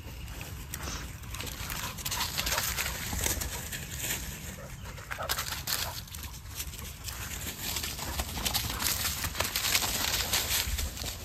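Footsteps and a dog's paws crunching and rustling through dry fallen leaves in an irregular run of crackles, thickest from about two seconds in.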